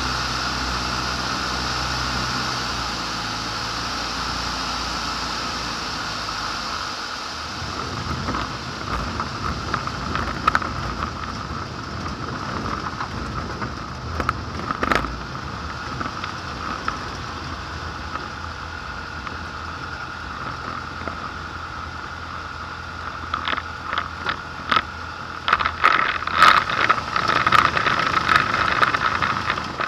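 Light aircraft's propeller engine running steadily while the plane rolls on the ground. The engine note changes about seven seconds in. In the last few seconds, repeated clicks and rattles come from the airframe over rough grass.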